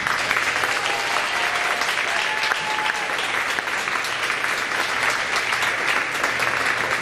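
Audience applauding steadily, starting abruptly, then fading away just after the end.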